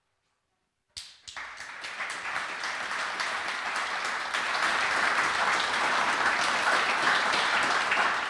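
Audience applauding: near silence for about a second, then clapping starts and swells to steady applause.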